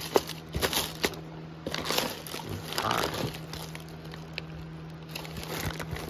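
Plastic parts bags crinkling and rustling as a gloved hand rummages through a plastic bin of bagged hardware, in irregular crackles with a sharp one just after the start. A steady low hum runs underneath.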